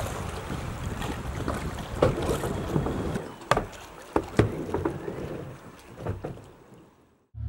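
Outdoor ambience of wind buffeting the microphone, with a few scattered sharp knocks, fading out to silence near the end.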